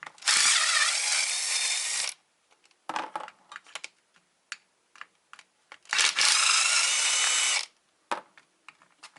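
Small electric impact driver running in two bursts of about two seconds each, backing screws out of a viscous fan clutch. Short clicks and clinks from the screws and the tool are heard between the bursts.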